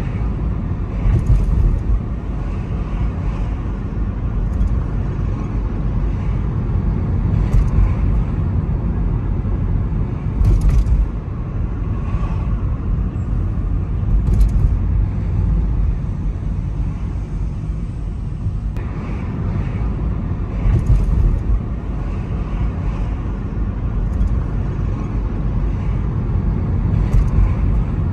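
Car interior noise: a steady low rumble of engine and road noise heard from inside the cabin, with scattered brief clicks and knocks.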